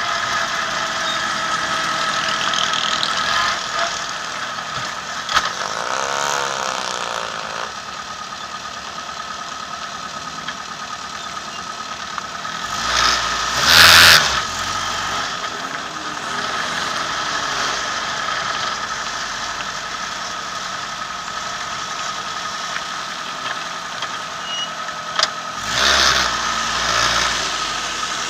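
Formula 2000 race car's engine idling steadily, heard from a camera mounted on the car, with two brief louder rushes of sound about halfway through and again near the end.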